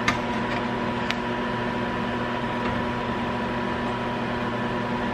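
Steady hum and whir of an electric fan motor, with a couple of faint clicks near the start.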